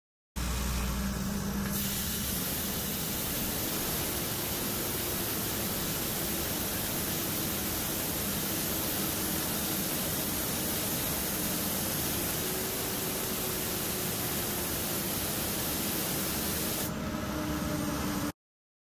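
Diesel pusher RV's engine running with its exhaust brake engaged: a loud, steady rushing air hiss, which the mechanic traces to air or exhaust leaking out past the brake when it closes. The hiss swells about two seconds in and falls away near the end, over the engine's low rumble.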